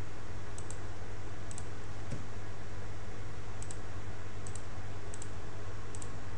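Computer mouse button clicked about six times at uneven intervals, each click heard as a quick pair of ticks from press and release, selecting polygons one after another. A steady low hum and hiss run underneath.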